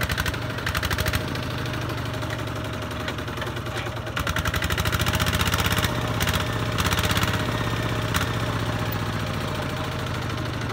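Two-wheel walking tractor's single-cylinder diesel engine running with a rapid, even knock, hauling a loaded trailer through deep mud. It gets louder for a few stretches, most of all from about four to six seconds in.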